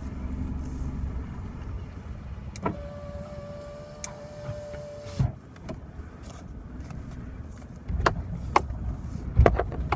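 Car cabin noise: a steady low engine and road rumble. About a third of the way in, a steady motor whine runs for about two and a half seconds, starting and stopping with a click. Near the end the rumble grows louder, with a few sharp knocks.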